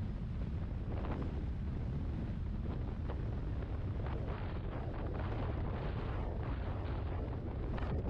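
Wind buffeting the microphone of a scooter riding at highway speed: a steady low rush with brief gusts every second or two.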